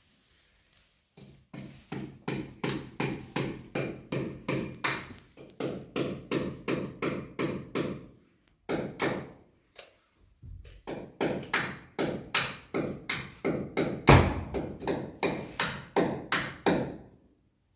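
Hammer blows struck in quick succession, about three a second, in two long runs with a short break about halfway; one blow in the second run is the loudest.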